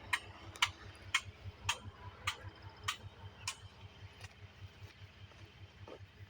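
Bulldozer's diesel engine running low and steady, with sharp metallic clicks about twice a second through the first half that then die away.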